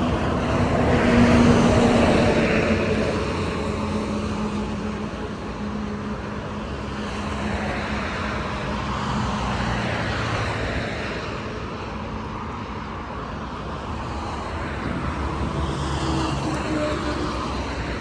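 Engine noise of a passing vehicle, loudest about a second or two in and slowly fading, over steady outdoor traffic noise; it swells again near the end.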